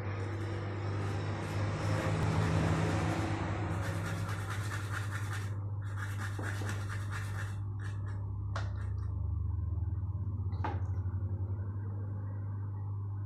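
Scratching and scraping of small tools on a circuit board during SMD soldering work, over a steady low hum. Two sharp clicks come in the second half.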